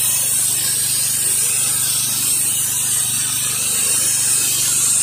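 Pressure washer spraying a high-pressure jet of water onto a concrete driveway: a steady hiss, with the machine's engine and pump running as a constant low hum underneath.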